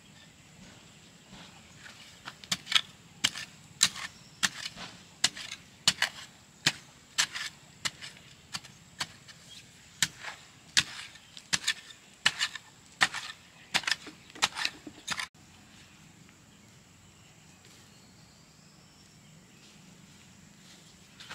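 A hoe chopping into soil in a quick run of sharp strikes, about two a second, that stops suddenly about fifteen seconds in.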